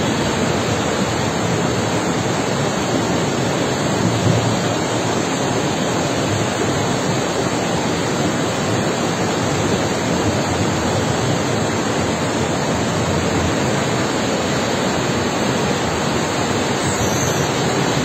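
A river in flood rushing past: the steady, loud noise of fast-flowing muddy floodwater.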